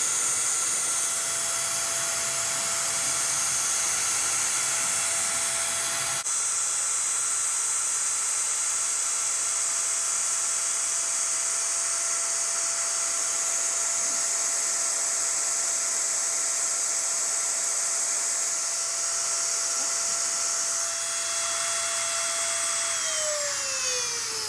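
X-Carve CNC router spindle running at speed with a steady high whine while its bit cuts into a wooden board. Near the end the whine falls in pitch and fades as the spindle winds down.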